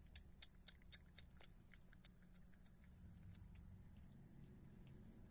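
Virginia opossum chewing wet cat food and sour cream: faint, quick smacking clicks, many in the first couple of seconds and sparser after, over a low steady hum.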